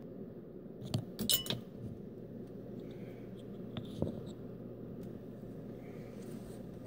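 Handling noise as a phone camera is set up by hand: a quick cluster of sharp clicks and clinks about a second in and another tap about four seconds in, over a low steady hum.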